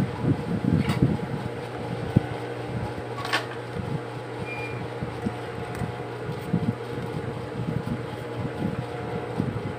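Steady low motor hum, with fabric being shifted and smoothed by hand on the sewing table and two light clicks, about a second in and just past three seconds.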